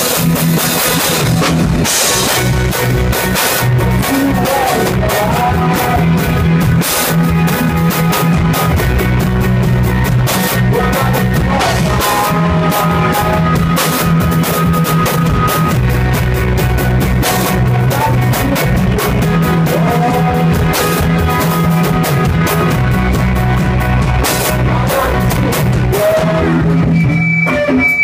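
Live rock band playing loud: a drum kit pounding steadily under electric guitars and bass, filmed from the front of the crowd. The sound thins out briefly near the end.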